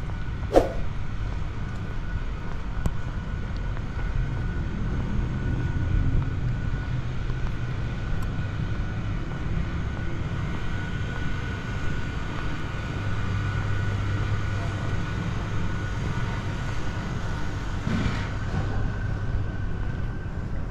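Steady low rumble of distant city traffic, with a single sharp click about half a second in.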